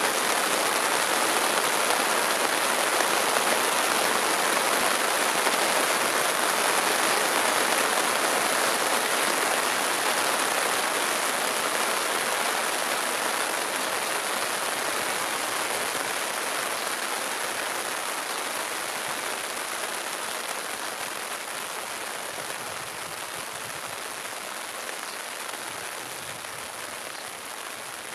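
Steady rain falling, a dense even hiss that slowly grows fainter.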